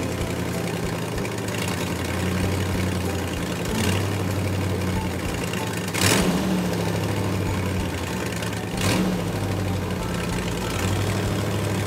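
Heavy truck engine running steadily, the engine sound given for a tow truck, with brief louder surges about four, six and nine seconds in.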